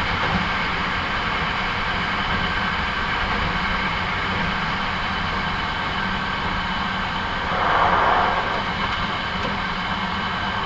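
Hankyu 9300 series electric train running at steady speed, heard from on board: a continuous rumble of wheels on rail with a steady motor hum, and a brief louder rush about eight seconds in.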